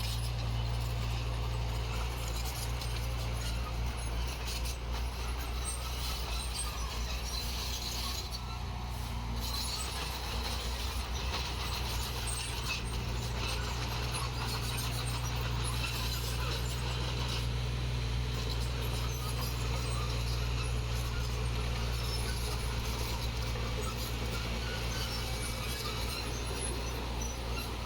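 Heavy diesel engine of construction machinery running steadily at a constant pitch and level.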